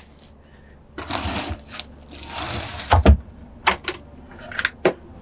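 Wooden drawers under a berth being slid open and shut, with rustling and sliding noise. A loud thump comes about three seconds in as a drawer closes, followed by several sharp clicks as the drawers are pushed home.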